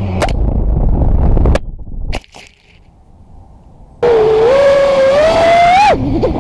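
FPV quadcopter's motors: a rough rumble with sharp knocks as it crashes, then the motors fall silent for about two seconds. About four seconds in, a steady motor whine starts up again and rises in pitch near the end.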